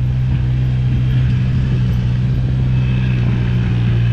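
ATV engine running at a steady speed as the four-wheeler drives along, heard close from a camera on its rack: an even, unbroken low drone.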